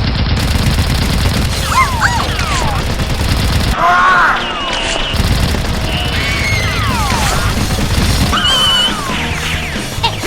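Background music with a dense, steady low beat, overlaid by several falling, whistle-like sound-effect glides.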